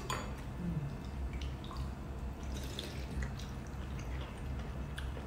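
Metal spoons lightly clinking and scraping in ceramic soup bowls and soup being sipped from a spoon, as scattered soft ticks over a low steady hum.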